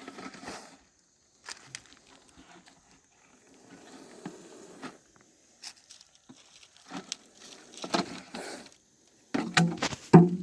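Indian cobra hissing in repeated short breathy bursts, with hood raised in defence. A louder, lower rustle or knock comes near the end.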